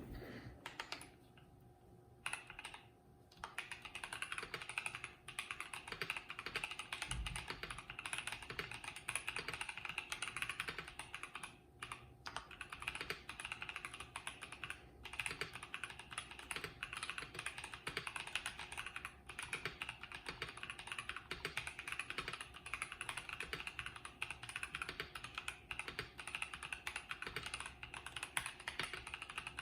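Continuous fast typing on a KBD67 Lite R3 65% mechanical keyboard with stock, unlubed Boba U4T tactile switches and lubed, Holee-modded stock stabilizers, starting about two seconds in after a short pause.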